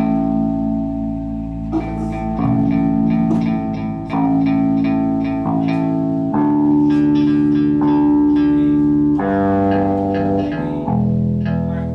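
Live band playing: strummed guitar chords over bass guitar, each chord held and ringing for a second or two before the next.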